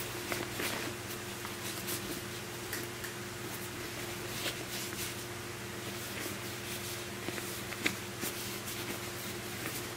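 A backpack being handled: soft fabric rustles and scattered small clicks, with one sharper click near the end, over a steady low hum.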